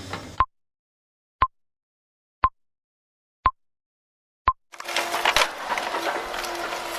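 Machine noise cuts off, then five short, even beeps at one pitch sound exactly a second apart in silence, like an edited-in countdown. About a second after the last beep, dense mechanical clatter with rapid sharp clicks starts, typical of tree-cutting machinery at work.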